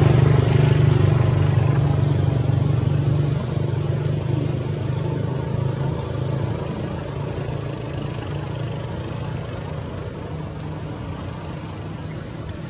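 A low engine hum, steady in pitch, fading gradually as it moves away.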